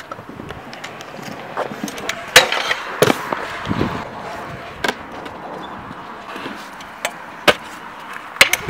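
Stunt scooter wheels rolling over asphalt and concrete, with several sharp clacks of the deck and wheels striking the ground and a ledge, the loudest about two and a half seconds in.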